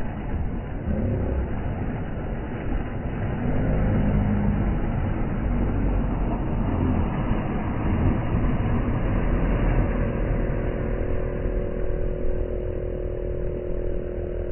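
Outboard boat motor running, with a steady pitched hum coming in about ten seconds in, over the wash of small waves.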